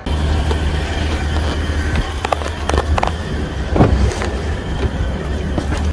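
Street traffic outside a waiting taxi, a steady low rumble with scattered clicks and knocks, including the click of the taxi's rear door handle being pulled about four seconds in.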